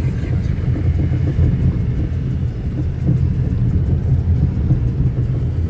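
Steady low rumble of a car driving, heard from inside the cabin on a wet road.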